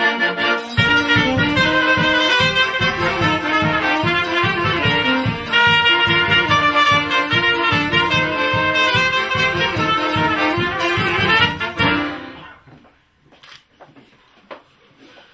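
Live wedding band playing a brisk tune, the melody on brass over a steady beat, stopping about twelve seconds in. Faint rustling and clicks follow.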